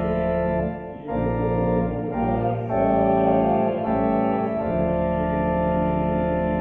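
Organ music: sustained chords held for a second or more at a time, changing a few times, with a brief dip in level about a second in.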